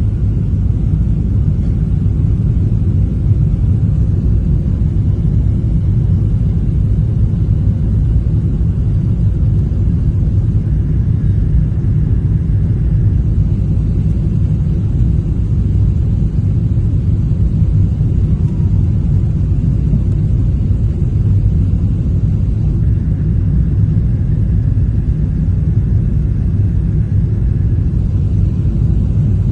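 Steady low rumble of jet engine and airflow noise inside an airliner cabin in flight.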